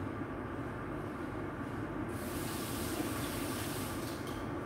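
Steady low hum of a kitchen range hood's extractor fan running over the stove. About two seconds in a brighter hiss joins it for roughly two seconds.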